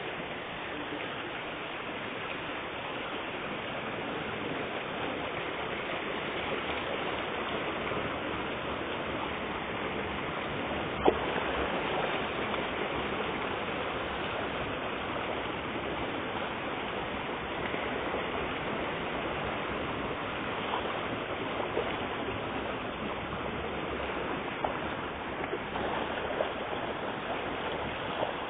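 Steady splashing and churning of water as a dense crowd of common carp thrash at the surface of a concrete pond. There is a single sharp knock about eleven seconds in.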